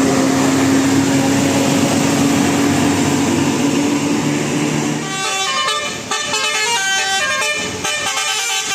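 Loud steady vehicle noise with a low drone, then from about five seconds in a telolet 'basuri' musical horn plays a quick tune of short notes.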